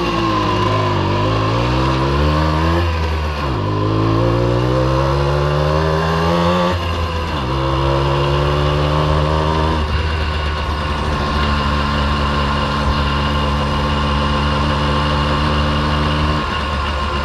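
Simson S51 B moped's 50 cc single-cylinder two-stroke engine running, its pitch climbing twice with a sudden drop between, then holding at a steady speed.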